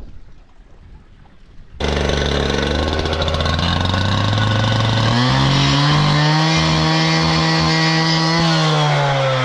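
Handheld power cut-off saw starting up suddenly about two seconds in and running loud and steady while it cuts through steel turf edging, its pitch dropping near the end as the blade bites.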